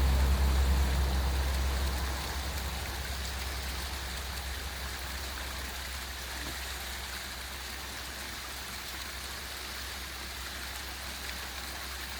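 Small waterfall splashing and rushing steadily. A low engine hum fades away over the first two seconds.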